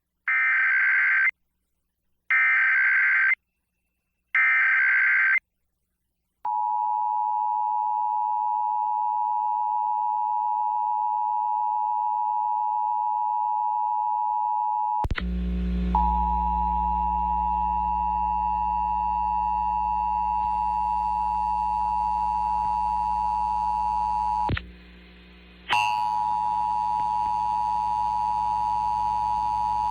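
Emergency Alert System signalling: three one-second bursts of SAME header data tones, then after a short gap the EAS two-tone attention signal (853 and 960 Hz together) sounding steadily. About halfway through a low hum comes in underneath, and near the end the tone drops out for about a second before resuming.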